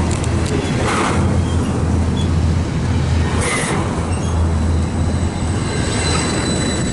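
Double-stack intermodal freight cars rolling past close by: a steady, loud rumble of wheels on the rails. A thin, high steady whine comes in over the last couple of seconds.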